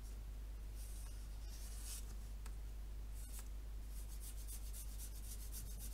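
Sharpie felt-tip marker scratching on paper as eyes are drawn: several short strokes, then a longer run of strokes near the end.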